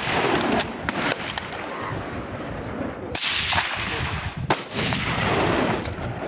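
Hunting rifles firing on a range: two loud shots about three and four and a half seconds in, each followed by a long fading echo, with fainter shots from other shooters in between.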